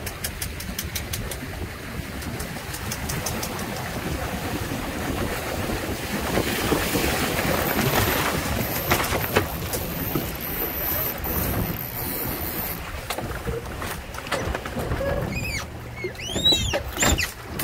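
Wind and water rushing past a Windrider 17 trimaran sailing under spinnaker: a steady noisy rush that swells around the middle. Near the end come a few short high squeaks that rise and fall in pitch.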